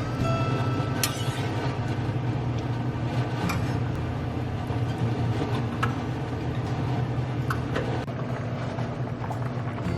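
Kitchen cooking sounds: a steady low hum under a few brief sharp clicks of utensils or cookware.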